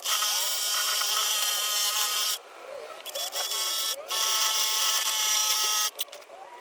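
A small electric power tool runs in two bursts of about two seconds each, with a steady motor whine over a hiss and a short pause between.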